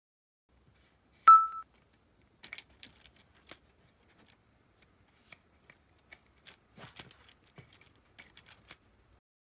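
A short bell-like ringing tone about a second in, the loudest sound, then a long run of light, irregular clicks and taps as the paper flaps of a split-flap display module are flipped over by hand one after another.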